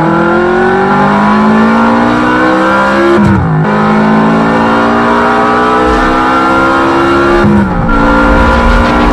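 Onboard sound of a short-course RC truck's motor and drivetrain whining. The pitch climbs steadily as it accelerates, falls sharply about three seconds in and again near the end as it slows, then climbs once more.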